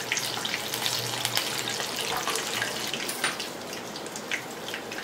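Deep-frying oil in an iron kadai sizzling steadily with many scattered crackling pops around fried chicken legs. The oil's boiling has settled down, the sign that the chicken is cooked through.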